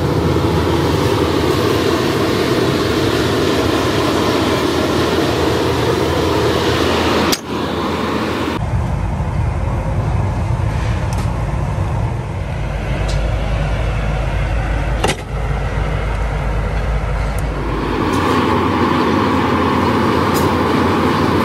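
Steady, loud mechanical roar of foundry machinery, with no voices. It changes character abruptly a few times, becoming a deeper rumble through the middle and turning back to a higher rushing noise near the end.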